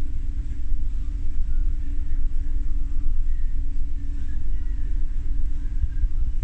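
Ferry's engines running, a loud, steady low rumble with a constant droning hum.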